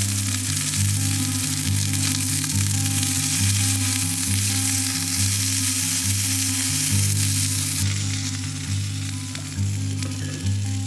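Food sizzling and frying in a hot pan, a steady dense hiss, with background music of slow repeating bass notes under it.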